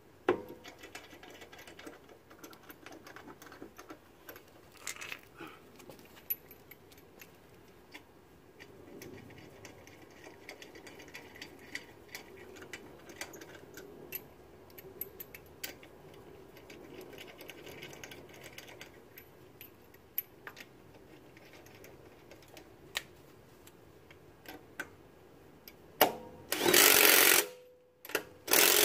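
Impact wrench running in two short bursts near the end, driving a car wheel's lug nuts home. Before that, faint clicks and light metal rattles of the lug nuts being threaded on by hand.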